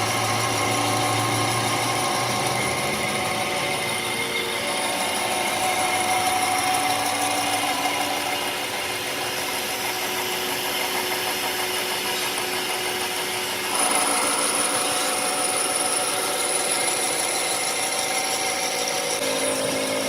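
A workshop power tool running steadily under load, its tones drifting. About two-thirds of the way in the sound changes suddenly, getting a little louder, with a high whine.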